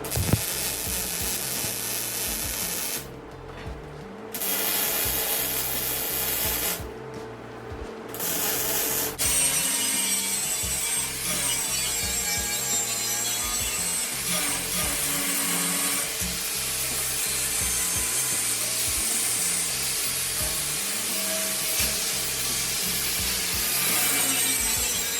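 Angle grinder grinding a welded metal grill-rack frame. It cuts out briefly twice in the first several seconds, then runs on continuously, its high whine dipping and recovering as it is pressed against the metal.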